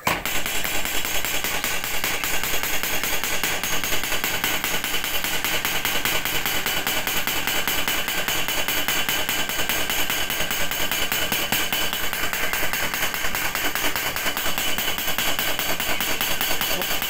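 Homemade motor-driven mechanical power hammer (a spring-loaded arm driven by an electric motor) pounding a flat steel strip on its anvil. It starts abruptly and keeps up a fast, evenly spaced clatter of metal-on-metal strikes.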